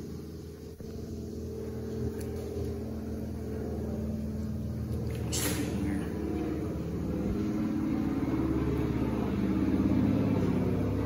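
A low, steady motor or engine hum that grows gradually louder, its pitch wavering slightly, with a brief hiss about five seconds in.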